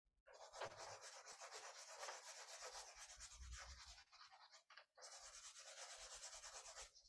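Faint, steady scratchy rubbing of a drawing tool colouring in on paper, in two stretches with a short pause about four seconds in.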